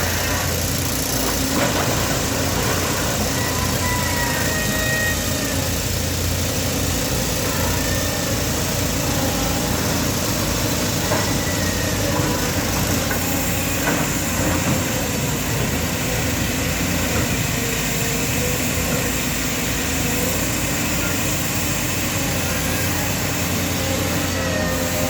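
Diesel engine of heavy construction machinery running steadily, with a few short high squeaks over it.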